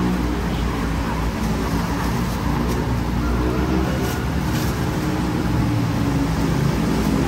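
Road traffic going past: a steady rumble of vehicles on the street, with a few light clicks in the middle.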